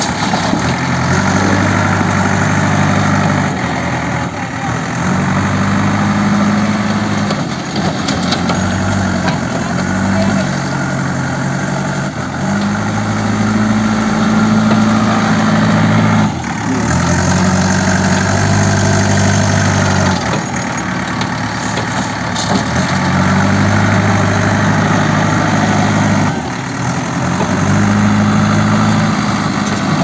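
JCB 3DX backhoe loader's Kirloskar diesel engine running loudly, its pitch stepping up and down every few seconds as it is throttled up and eased off while the loader works.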